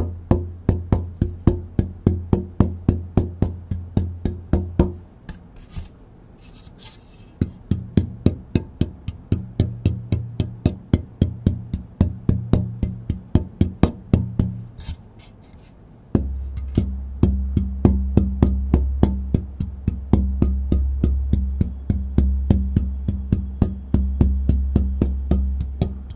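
Tap-testing a torrefied Sitka spruce guitar top: a steady series of taps, two to three a second, each ringing on with a low resonant tone, in three spells with short lulls between them, the ring pitch shifting from one spell to the next. The ring has what the tester calls a metallic quality, typical of the dry, heat-treated wood.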